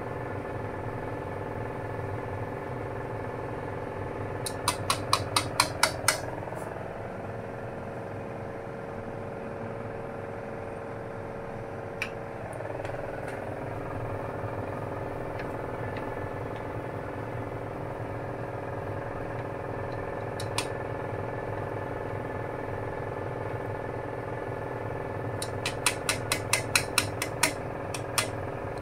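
A steady, multi-pitched hum from the cooker under noodles boiling in a wok. Twice, a quick run of about eight sharp clicks: chopsticks tapping against the wok as the noodles are stirred.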